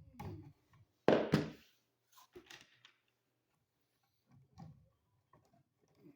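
Wire cutters snipping through the ends of twisted copper wires: one cut about a second in, followed by faint clicks and rustles as the wires are handled.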